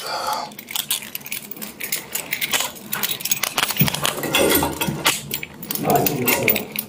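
Steel handcuffs clinking and clicking as one cuff is unlocked from a wrist and locked onto a metal bench bar.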